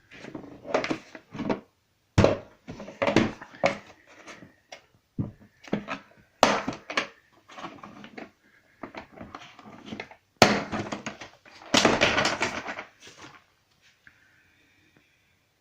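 Handling noises: irregular clicks, knocks and rustling, with sharp knocks about two, six and ten seconds in and a longer rustle near twelve seconds.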